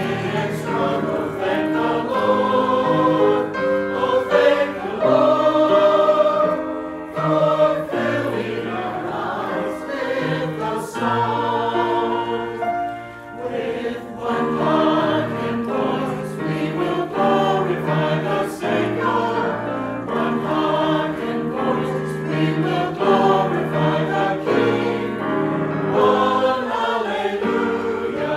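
Small mixed church choir of men and women singing a gospel anthem in parts, sustained notes moving from phrase to phrase, with a brief break between phrases about halfway through.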